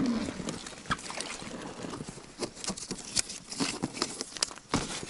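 Irregular clicks, knocks and scuffs from handling an inflatable float raft and working its straps and plastic buckles, with swim fins scuffing on wet gravel at the water's edge.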